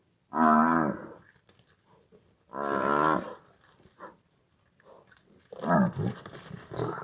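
A large animal bellowing: two long, wavering calls in the first few seconds, then a lower, rougher call near the end.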